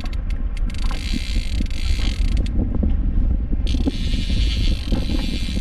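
Steady low rumble with a hiss over it, aboard a small fishing boat at sea. The hiss drops out briefly near the start and again about two and a half seconds in.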